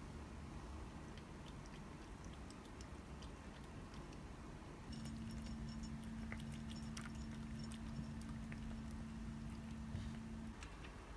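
A cat crunching dry kibble from a ceramic bowl: faint, irregular crunching clicks that come thicker from about halfway through. A low steady hum sets in about five seconds in and stops shortly before the end.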